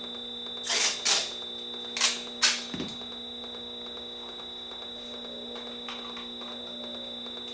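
Tape pulled off a roll in four short rasps within the first three seconds, over a steady electrical hum with several held tones.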